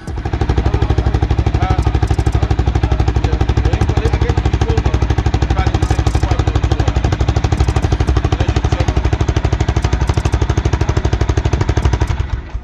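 Engine running steadily at close range, with a loud, rapid, even chugging pulse.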